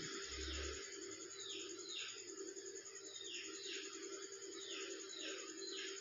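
Small birds chirping in short downward chirps, often in pairs, at irregular intervals over a steady low hum.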